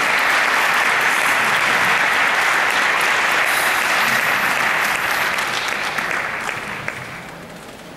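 Audience applauding: a steady spread of clapping that dies away about seven seconds in.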